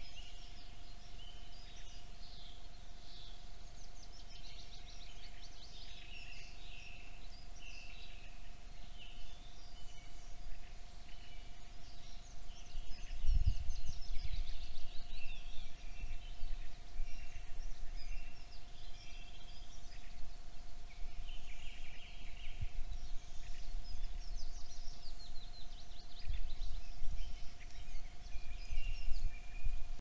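Songbirds singing: many short overlapping phrases and trills, with a steady faint hum beneath them. From about halfway, irregular low rumbling bumps come in and are the loudest sound.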